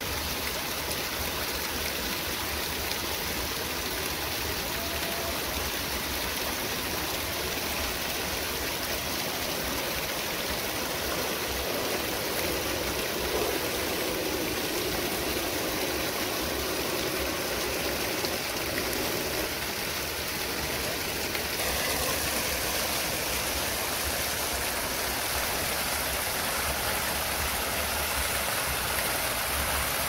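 Rushing water of a rocky forest stream, a steady hiss that turns brighter about two-thirds of the way through.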